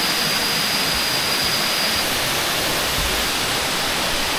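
Erawan Waterfall's cascades rushing steadily, a loud constant wash of falling water. A thin high steady tone sounds over it and stops about two seconds in.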